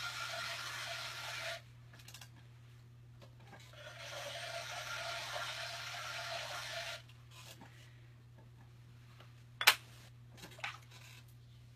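A trimming tool scraping the base of a clay vase turning on a pottery wheel, shaping a rounded bottom: two stretches of steady scraping hiss with a pause between. Near the end comes a sharp knock, then a fainter one.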